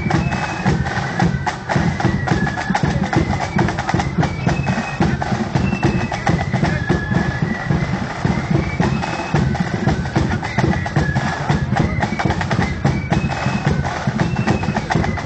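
Marching band playing a tune: a high melody over rapid snare drumming and a steady bass drum.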